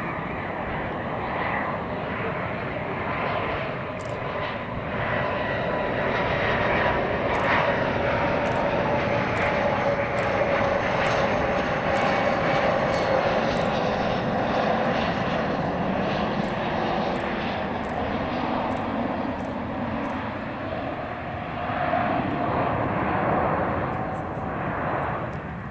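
Dassault Falcon 7X business jet on final approach, its three Pratt & Whitney Canada PW307A turbofans at low landing power giving a steady jet rush with a whine whose pitch slides slowly lower. It grows louder toward the middle and swells again near the end as the jet comes in close.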